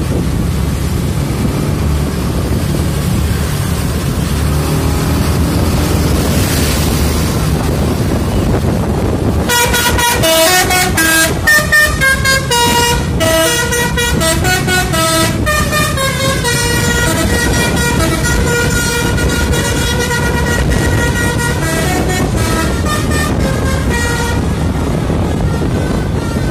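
A steady low engine rumble throughout. About nine seconds in, a horn starts sounding a run of toots that step between different pitches, carrying on for about fifteen seconds.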